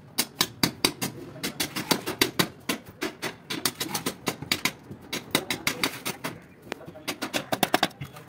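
Glossy ceramic wall tile being tapped rapidly by hand to bed it into the adhesive: a quick, irregular run of sharp taps on the hard tile face, in clusters with brief pauses.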